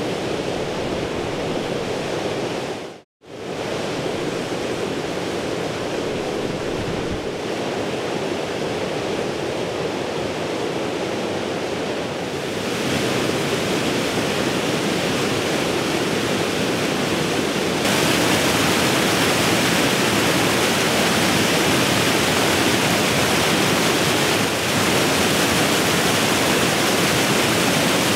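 Warta river water rushing over a low weir and through rapids: a steady whitewater rush. It drops out briefly about three seconds in, then becomes louder and brighter in two steps, near the middle and about two-thirds of the way through.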